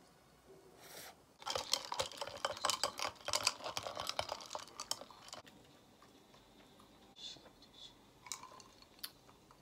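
Close-miked eating and drinking sounds. For about four seconds there is a dense run of rapid crackly clicks. After that come a few quieter gulps as a drink is swallowed.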